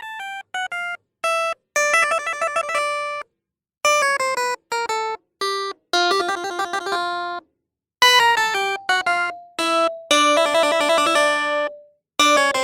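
Background music: bright, plucky keyboard notes played in short phrases, broken by brief silences.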